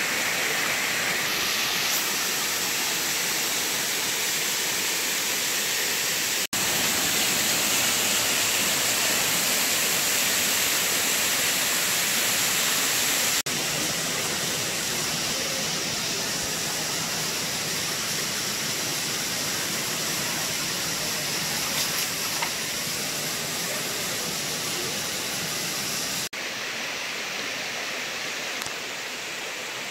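Cascading waterfall spilling over stepped rock ledges: a steady rush of falling and splashing water. It breaks off for an instant at a few abrupt cuts and is a little quieter near the end.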